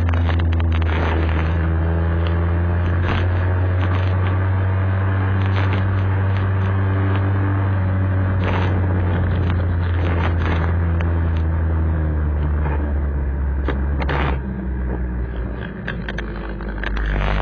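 Vintage Vespa scooter's two-stroke engine running at steady road speed, heard from a camera mounted on the scooter, with scattered clicks over it. About fourteen seconds in the engine note drops as the scooter eases off and slows, then picks up again near the end.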